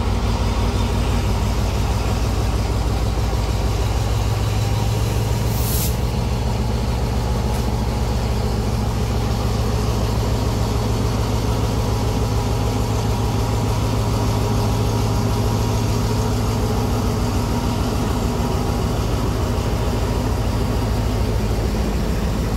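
Diesel passenger train running, a steady low rumble, with a short hiss about six seconds in.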